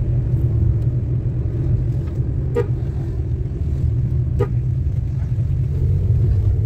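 Car driving on a rough, gravelly road: a steady low road and engine rumble, with two brief sharp taps about two seconds apart.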